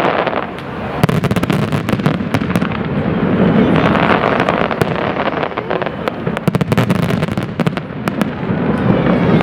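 Fireworks display: a dense, continuous barrage of bangs and crackling pops.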